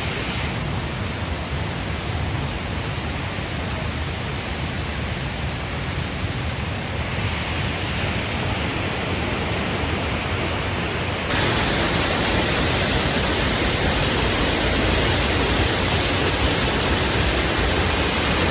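Waterfall with steady, loud falling water. About eleven seconds in the sound changes abruptly to a louder, brighter rush.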